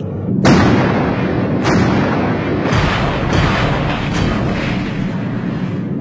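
Animated battle sound effects: a dense run of gunfire and explosions, with about five blasts in quick succession over a continuous rumble.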